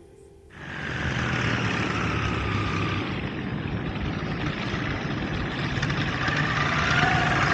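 Paramotor engine and propeller running steadily, cutting in abruptly about half a second in; the engine note dips slightly in pitch and then rises again toward the end.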